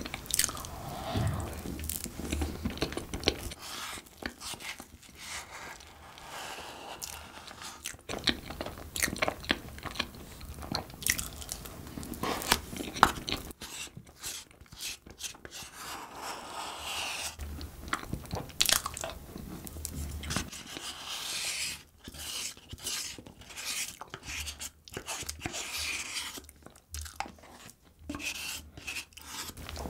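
Close-miked chewing and mouth sounds of a person eating soft cream-topped cupcake from a spoon: many short smacks and clicks of lips and tongue.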